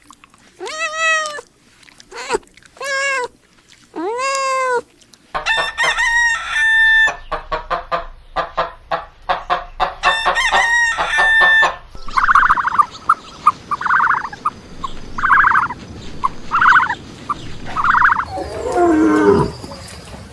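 Domestic chickens: hens clucking and roosters crowing, in a run of separate recordings that change abruptly about 5 and 12 seconds in.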